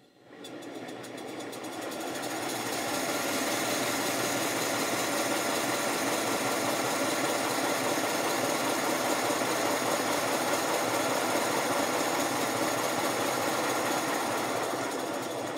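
5-inch gauge GWR 14XX model locomotive running light with its wheels free on a stand, the rapid exhaust beats and motion building up over the first few seconds as the regulator opens, running steadily, then easing off near the end.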